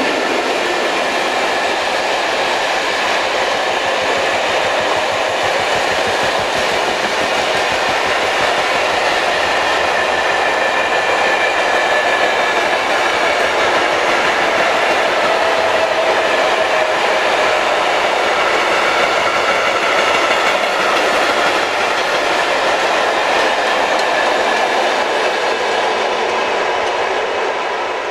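Freight train of flat wagons rolling past at speed: a steady clatter of wheels on the rails, clicking over the rail joints, with faint high ringing tones on top. It tails off near the end as the last wagon goes by.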